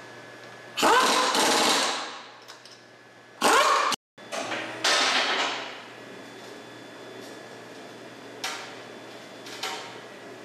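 Air impact wrench hammering in short bursts as it runs on and tightens the wheel's lug nuts, the longest burst about a second in. Two light knocks near the end over a steady low hum.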